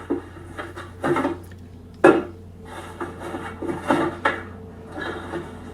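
Scattered clinks and knocks of dishes and cutlery being handled, about five in all, the loudest about two seconds in, over a steady low hum.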